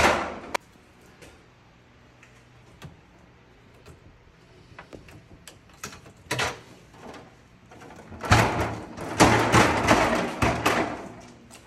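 Metal shelf of a spiral-coil snack vending machine being handled as it is moved to a new height: a few sharp clicks at the start, light ticks, then a loud clatter and scrape of metal on metal from about eight to eleven seconds in.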